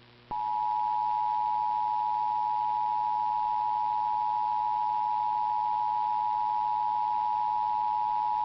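Emergency Alert System attention signal: a steady two-tone electronic alert starting a moment in and held without a break. It announces an incoming child abduction emergency (Amber Alert).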